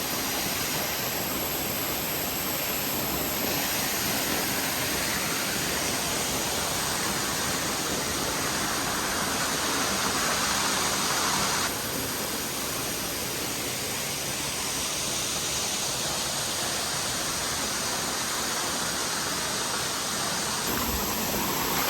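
Waterfall rushing steadily, a dense, even sound of falling water; its tone shifts abruptly a few times, about a second in, halfway through and near the end.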